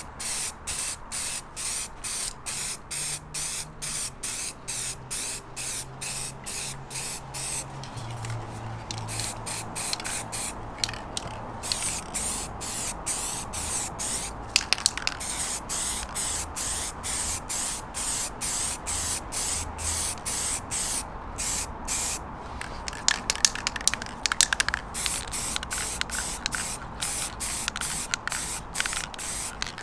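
Aerosol spray paint can hissing in quick short squirts, about three a second, as paint is sprayed onto plastic bumper grilles. Short spells of sharp clicking come about halfway through and again near the end.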